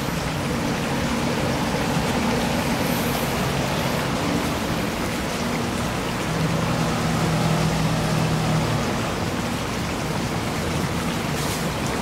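Steady rush of flowing water, with a low motor hum beneath it that grows louder for a few seconds past the middle.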